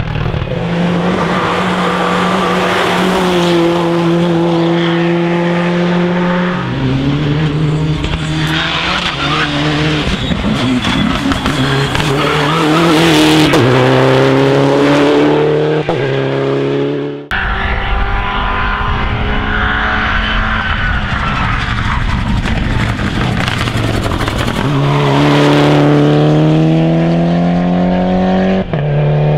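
Rally cars driven hard on a special stage, engines at high revs with gear changes stepping the pitch down and up. About 17 seconds in the sound breaks off abruptly and a second car follows.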